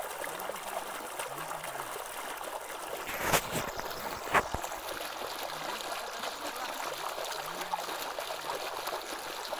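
Groundwater welling up out of the ground into a shallow puddle, bubbling and gurgling steadily. Two sharp knocks about a second apart, a third of the way in, stand out louder than the water.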